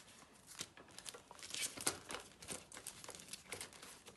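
Banknotes and paper cash envelopes rustling and crinkling as they are handled, in a quick run of crackles that is busiest around the middle.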